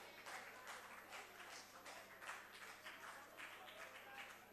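Faint, scattered applause from members of parliament, many uneven claps.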